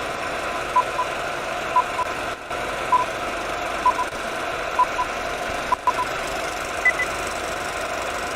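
Steady hissing noise with short electronic beeps in pairs about once a second; the last pair is higher-pitched.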